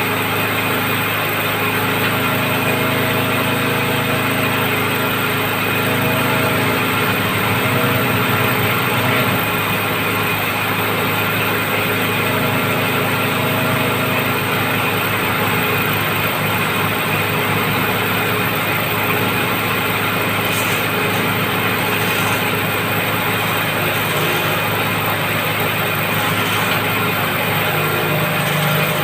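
Engine of a water-well drilling rig running steadily at a constant pitch.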